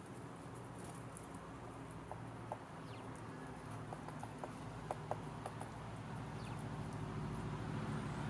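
Great spotted woodpecker pecking at a suet ball in a wire feeder: about a dozen sharp, irregular taps from about two seconds in until about six seconds in, over a steady low hum that grows louder near the end.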